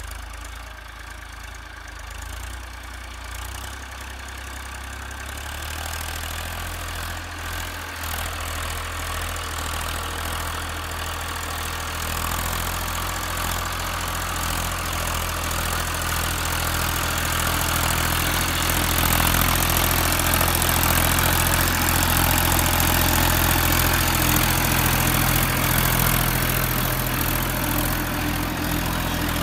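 Massey Ferguson tractor's diesel engine running steadily under load as it pulls a reversible mouldboard plough through the soil, growing louder as the tractor comes closer.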